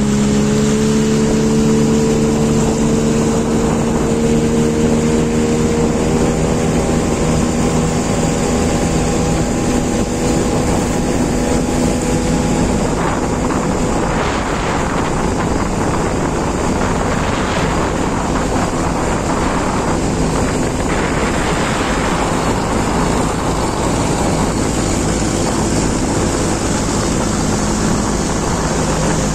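Boat engine running steadily underway, its hum rising slightly in pitch over the first several seconds. Wind buffets the microphone in gusts for several seconds midway.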